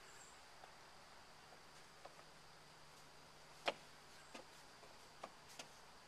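Near silence broken by a few light knocks on a wooden play-structure ladder and deck as a child climbs up, with one sharper knock a little past halfway.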